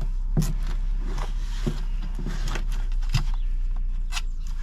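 Scattered light clicks, knocks and scrapes from hands handling objects at a workbench, over a steady low hum.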